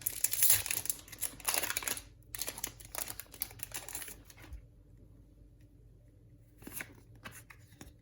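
Crinkling and tearing of a Pokémon booster pack's foil wrapper as it is opened and cards are pulled out, dense for about four seconds. After that it goes quiet apart from a few brief rustles near the end.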